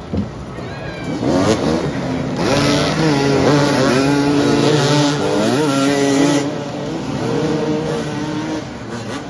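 Several motoball motorcycles' engines running and revving together, their overlapping pitches rising and falling as the riders accelerate and slow.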